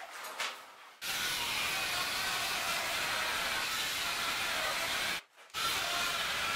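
Handheld electric planer running and cutting along a long timber mast blank: a loud, steady, hissing whir that starts suddenly about a second in, breaks off briefly about five seconds in, then resumes.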